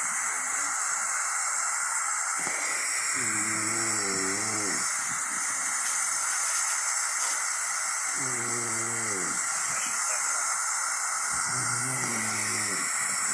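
A loud, steady hiss, with faint muffled voices rising and falling three times underneath it.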